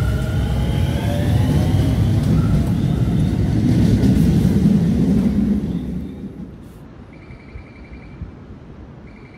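Keio 7000-series electric commuter train pulling out past the platform: a heavy wheel and track rumble with the motors' whine rising in pitch as it accelerates. The rumble dies away about six seconds in as the last car clears the station, leaving faint repeated beeping tones.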